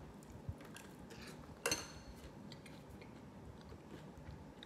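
Metal spoon clinking in a bowl of cereal and milk: faint scattered clicks, with one sharper clink a little under two seconds in.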